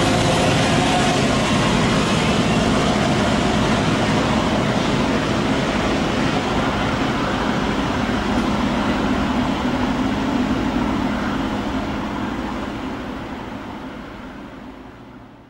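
Victorian Railways T class diesel locomotive with a van, running away down the line: a steady rumble of diesel engine and wheels on rail. It fades out over the last few seconds.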